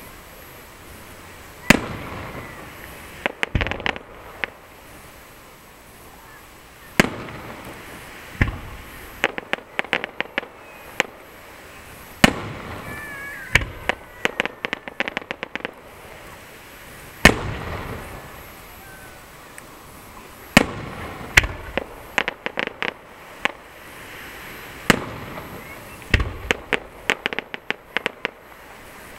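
Aerial firework shells bursting: a single sharp bang every few seconds, several of them followed by a second or two of rapid crackling pops.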